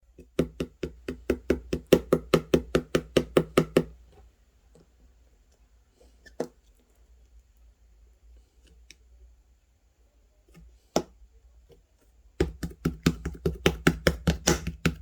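Rapid, even knocking, about six sharp knocks a second for about four seconds, then a few scattered single knocks, then another fast run starting near the end.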